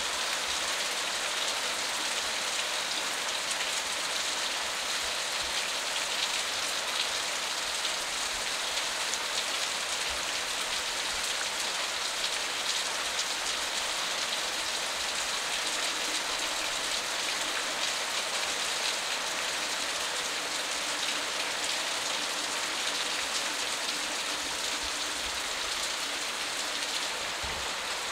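Steady rain falling, an even hiss of many fine drops.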